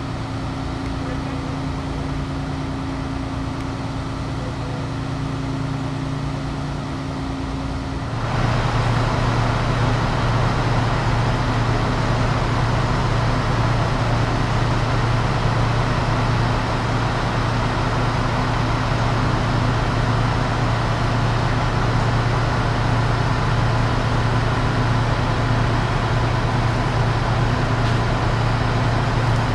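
ALn 776 diesel railcars running steadily with a low hum. About eight seconds in the sound turns suddenly louder and fuller and stays so.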